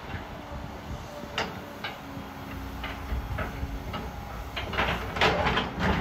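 Heavy diesel excavator working: a CAT 316E running with a steady low rumble and a faint hum as it swings its boom. Sharp clanks and knocks come thicker and louder near the end.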